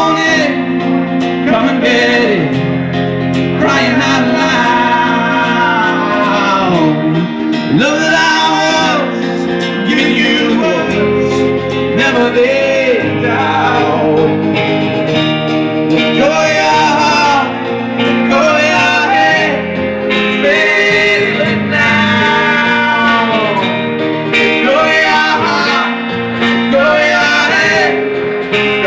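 Live band performing a song: male vocals sung into a microphone over strummed acoustic guitar and electric guitar, played loud through a PA, with the low notes changing every second or two.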